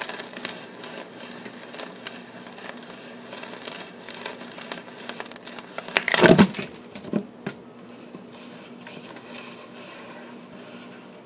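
Sharp ship auger bit turned by hand, cutting into wood with a dense crackling and tearing of shavings. There is a louder thump about six seconds in, after which the crackling dies down.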